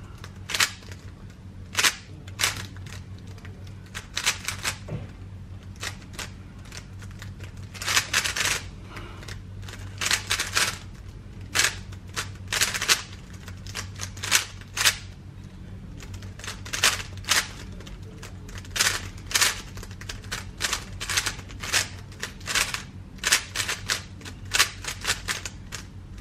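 GAN 13 MagLev 3x3 speed cube being turned fast during a timed solve: rapid clacking of the layers in quick runs of turns, separated by short pauses.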